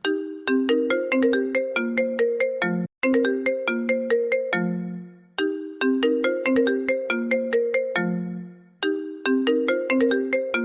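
A phone ringtone playing a looping melody of short, bright, chiming notes. Each phrase ends on a longer low note, and the phrase repeats about every three and a half seconds.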